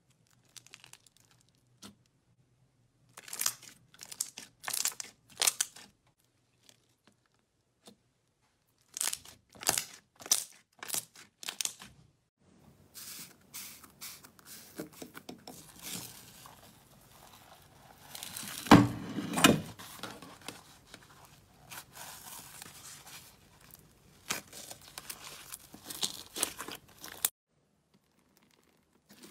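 Hands pressing and squeezing slime, giving irregular bursts of crackling and popping, with quiet pauses between. The loudest burst, a fuller pop, comes about two-thirds of the way through.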